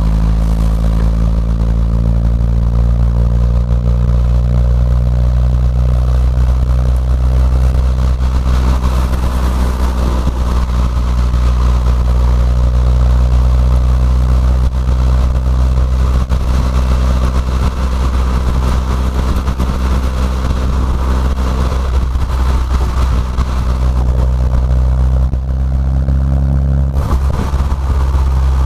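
Fiat 500 Abarth's turbocharged 1.4-litre four-cylinder cruising at low revs, heard from inside the cabin: a steady low exhaust drone through a catless downpipe and Ragazzon cat-back twin-muffler exhaust. The pitch rises slightly over the first few seconds as the car gathers speed.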